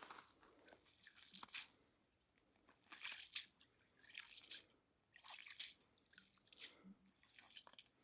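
Faint crunching and crackling in about six short bursts, roughly one a second: dry material such as reed stems or snow being handled or stepped on.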